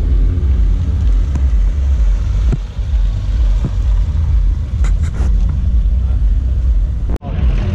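Subaru WRX engine running close by at low speed: a steady, deep rumble.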